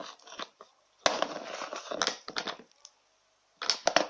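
Freshly mixed, still sticky glue slime being squeezed and pulled in the hands, making wet crackling squelches. It comes in two spells: a long one from about a second in and a short one near the end.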